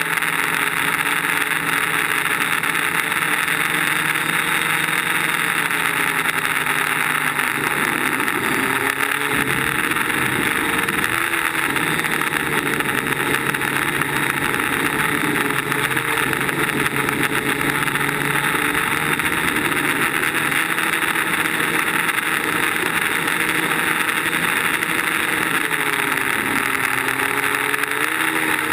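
DJI Flame Wheel quadcopter's brushless motors and propellers buzzing, heard from the camera on board over a rushing hiss of air. The pitch of the buzz dips and rises several times as the throttle changes.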